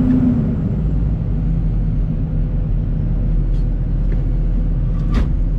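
John Deere 250G excavator's diesel engine running steadily under work. A higher hum dies away just after the start, and a few clanks follow, the sharpest near the end.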